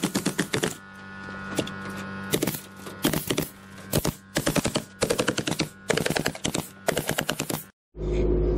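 Pneumatic stapler firing in rapid bursts of several shots each, fastening metal lath to the wall, over a steady hum. After a cut near the end there is a steady low hum.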